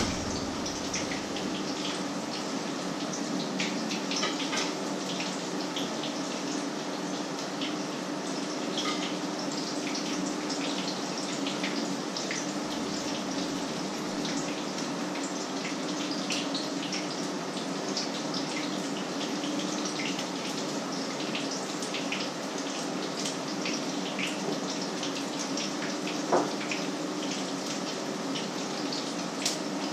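Patties frying in hot oil in a pan: a steady sizzle with frequent small crackles and pops, over a low steady hum. One sharp knock near the end.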